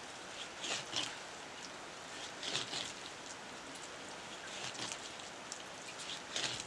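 A blade cutting through raw meat held in the hand: a few short, soft scraping strokes a second or two apart, over a steady hiss.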